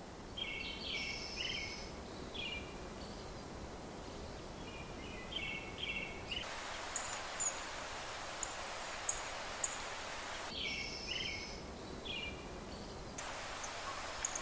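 Quiet outdoor background hiss with birds chirping in short bursts of twittering calls several times.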